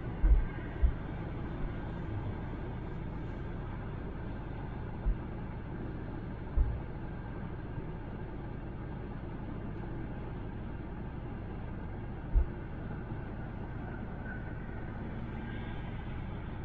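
Steady road and tyre noise from a car cruising on a highway, heard from inside the cabin, with a few short low thumps now and then.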